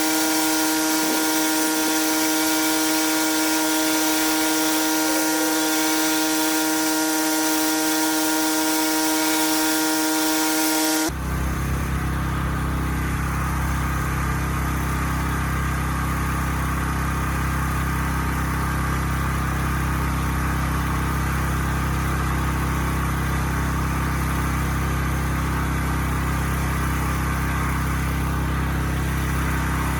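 Pressure washer running. For about the first eleven seconds there is a high, steady whine over a hiss of spray. Then it switches abruptly to a lower, steady engine drone, which holds for the rest of the sound.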